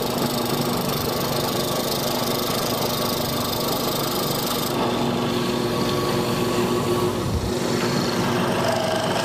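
Drill press motor running steadily while a hollow square mortising chisel and its auger bore a square hole into wood. The high hiss eases a little about five seconds in.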